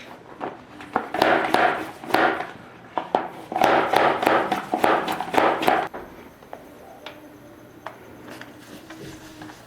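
Hand air pump being worked in a run of rough, hissing strokes, two and then three, as it inflates the newly fitted front tire of a Xiaomi electric scooter. The strokes stop about six seconds in.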